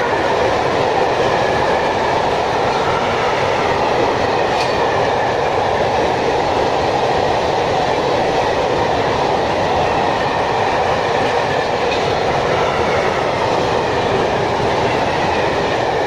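A freight train's loaded coal hopper wagons rolling past close by, their wheels running on the rails with a steady, loud rumble and rattle.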